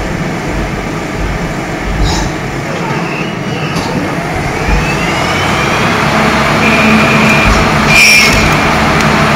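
CNC lathe running a turning cycle: a dense, steady machining noise, with a rising whine about four seconds in that then settles into a steady hum. Two sharp clacks come about two and eight seconds in.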